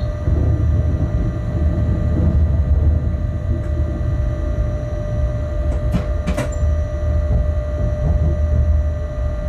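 Locomotive cab while the loco runs slowly: a steady low rumble with a constant humming whine from the loco's equipment. Two short sharp clicks come about six seconds in.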